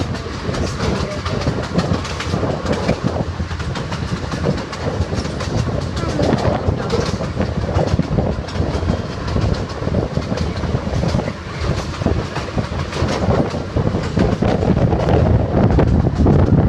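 Open passenger car of a small ride train rolling along its track: a steady rumble with continual rattling and clacking of the wheels and car, a little louder near the end.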